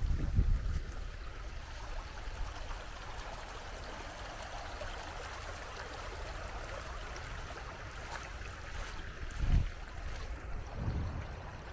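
Small shallow stream trickling and babbling steadily over sand and stones. A few short low rumbles come at the start and again about nine and a half and eleven seconds in.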